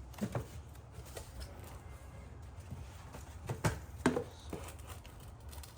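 A few light clicks and knocks from handling the taillight units, one near the start and a cluster about three and a half to four seconds in, over a low steady hum.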